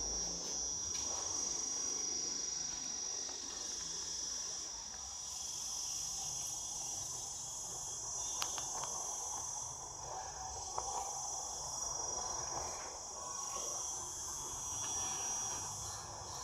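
Steady chorus of insects, a continuous high-pitched drone, with a couple of faint clicks about halfway through.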